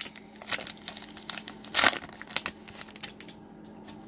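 Foil wrapper of an Upper Deck hockey card pack crinkling and tearing as it is peeled open by hand, in irregular crackles, the loudest nearly two seconds in.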